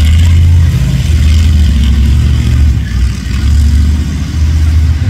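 Lifted off-road truck on oversized tyres, its engine revving hard as it drives through loose dirt. The deep engine note rises and falls with the throttle, easing off briefly every second or so.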